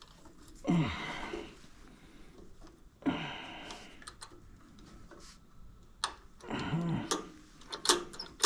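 A few sharp metallic clicks from the carburetor's throttle linkage and springs being unhooked by hand, with the mechanic's breathy sighs or grunts of effort about a second in, around three seconds in and near the end.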